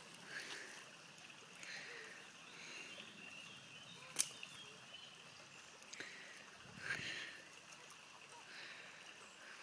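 Faint outdoor ambience of a stream running, with one sharp click about four seconds in and a few softer knocks.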